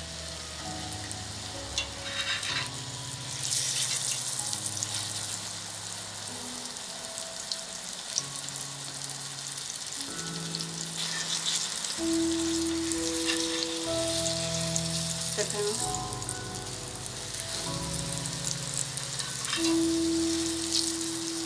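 A flour-coated pork cutlet shallow-frying in hot oil in a cast-iron skillet: steady sizzling with fine crackles, growing louder a few seconds in.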